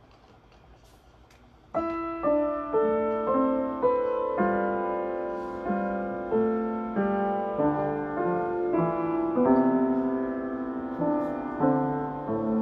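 Piano music, starting suddenly about two seconds in after a quiet start: a steady run of struck notes and chords, each fading before the next.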